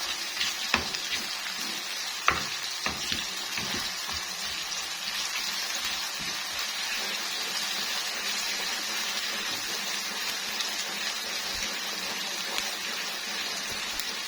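Sliced onions frying in hot oil in a pan as they are browned, a steady sizzle. There are a few sharp utensil knocks in the first four seconds.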